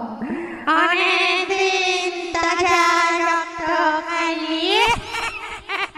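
Eerie wordless high voice singing long held notes with a wavering vibrato, a horror sound effect; the pitch glides up about four and a half seconds in, and the notes turn choppy and broken near the end.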